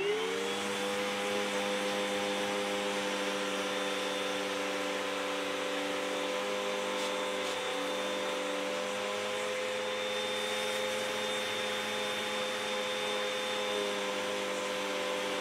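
Vacuum cleaner switched on, its motor quickly rising to a steady whine with a rushing hiss, sucking loose white fur fluff off a fabric-covered board through a hose and narrow nozzle.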